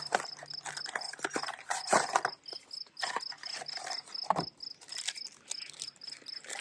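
Crickets chirping in an even, fast pulse, about three chirps a second, with several sharp clicks and knocks from parts being handled.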